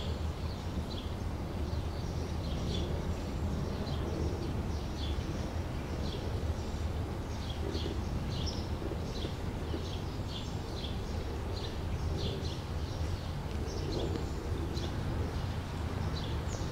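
Small birds chirping again and again over a steady low rumble of outdoor background noise.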